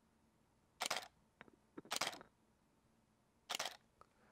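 Canon 5D Mark IV DSLR firing in silent shooting mode: three separate shutter releases about a second and a half apart, each a brief soft mirror-and-shutter cycle. They are really quiet.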